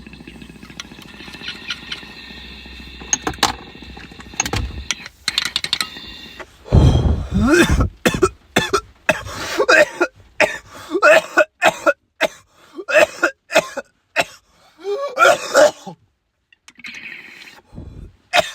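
A person in a hard coughing fit: a long run of loud, repeated coughs starting about seven seconds in, lasting around nine seconds, with a few weaker coughs near the end.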